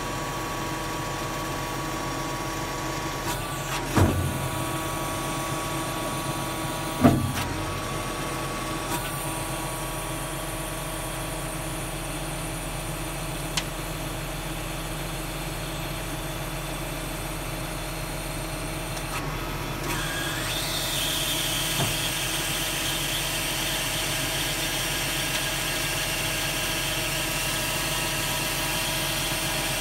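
Tractor engine running steadily, with two loud clunks about four and seven seconds in. About twenty seconds in it gets slightly louder, with more hiss.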